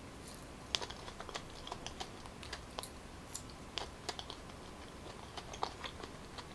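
Close-miked chewing of boiled purple yam: irregular sharp mouth clicks and wet smacks, several a second.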